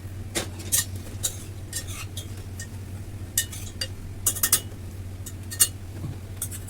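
Metal utensils clinking against a steel pressure-cooker pot: a scattered series of sharp clinks and light scrapes, over a steady low hum.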